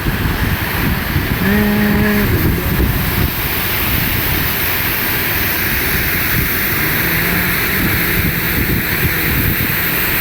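Steady rushing of the waterfall and mountain wind, with wind buffeting the microphone throughout. A brief pitched note sounds about two seconds in.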